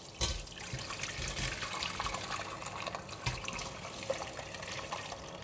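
Chicken stock poured in a steady stream from a large pot through a stainless steel mesh strainer into a smaller pot, splashing continuously, with the boiled vegetables tumbling into the strainer later on.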